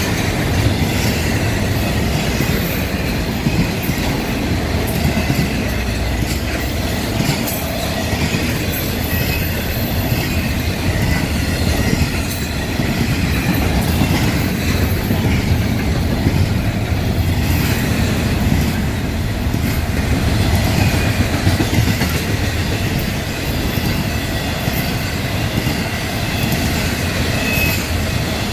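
Double-stack intermodal container cars rolling past: a steady rumble and clatter of steel wheels on the rails, with faint high wheel squeal at times.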